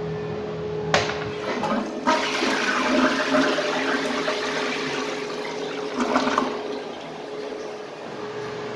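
Tank toilet flushed by its handle: a click about a second in, then a loud rush of water swirling and draining from the bowl for several seconds, with a last surge about six seconds in, settling to a quieter hiss of the tank refilling near the end.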